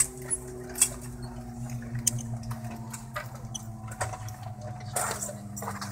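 Airbus A320 cabin noise at the gate: a steady low hum with faint steady tones, one sinking slowly in pitch, and a few short sharp clicks and knocks.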